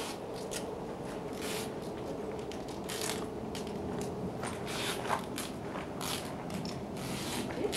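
Scattered rustles and crackles, like handling or clothing noise close to the microphone, over a steady hiss with a faint steady hum.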